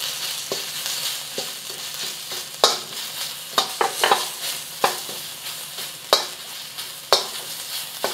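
Minced ginger and garlic sizzling in hot oil in a wok, stirred with a metal wok spatula that scrapes and clinks against the wok several times at irregular intervals.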